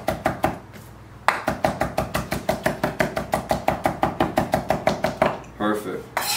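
Chef's knife rough-chopping Italian parsley on a wooden cutting board: quick, even strikes about seven a second, with a short pause about a second in, stopping a little after five seconds.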